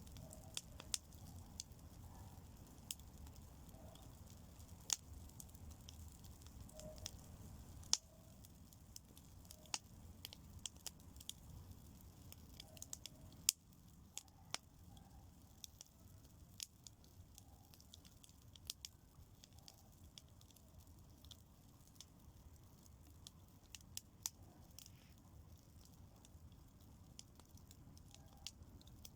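Bonfire crackling faintly, with scattered irregular sharp pops and snaps as fresh green fern fronds burn on it.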